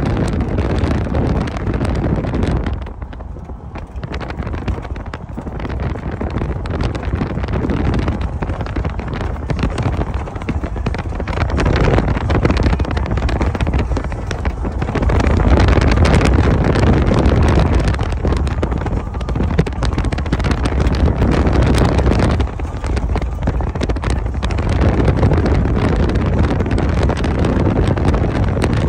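Wind buffeting the microphone in gusts: a loud, low rumbling noise that eases off briefly about three seconds in and again near twenty-three seconds.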